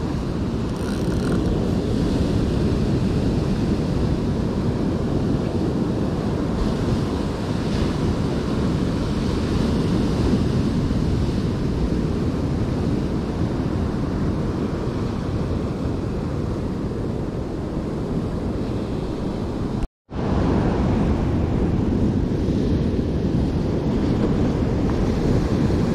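Surf breaking and washing over shoreline rocks, a steady rush of water with wind buffeting the microphone. The sound cuts out for a split second about twenty seconds in, then carries on.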